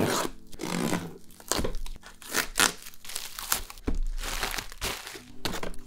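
Plastic packaging crinkling and tearing in irregular bursts as a plastic-wrapped parcel is cut open with a blade and clear plastic wrapping is pulled out of the box.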